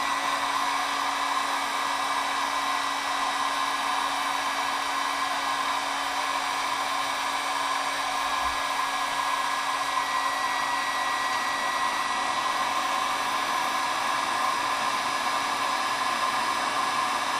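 Electric heat gun running steadily, blowing hot air onto an acrylic tube to soften it for bending; an even whir with a faint steady hum.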